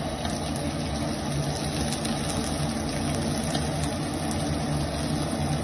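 Chicken tikka skewers sizzling in oil in a nonstick pan, with faint scattered spatter ticks, over a steady low hum.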